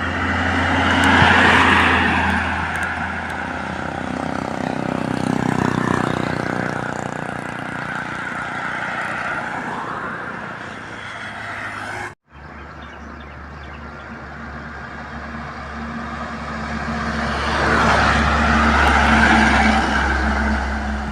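Heavy trucks driving past on a highway: low diesel engine drone and tyre noise swelling as each truck passes. The sound breaks off abruptly about twelve seconds in and picks up again with another truck passing.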